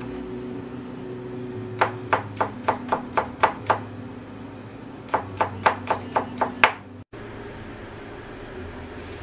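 Cleaver mincing garlic on a cutting board: two quick runs of sharp knocks, about four a second, the blade striking the board, eight strokes then seven after a short pause. A steady low hum runs underneath.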